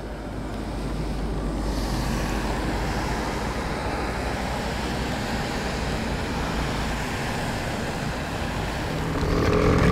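A car-carrier truck passing close on a rain-soaked highway, tyres hissing through the water, over steady rain and wind noise. The sound swells over the first two seconds, then holds steady.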